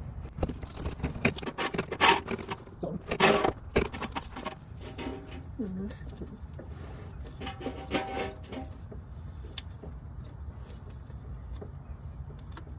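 Clicks, knocks and scrapes of a gloved hand working a radiator's plastic drain plug loose, most of them in the first four seconds, over a steady low hum.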